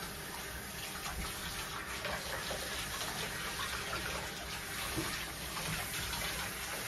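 Water running steadily from a handheld bathtub shower, spraying over a dog's wet coat and splashing into the bath water as the dog is rinsed.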